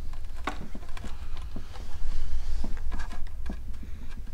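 Irregular light taps and clicks of fingers pressing epoxy putty onto a hollow plastic intake manifold and shifting it on the bench, over a steady low rumble.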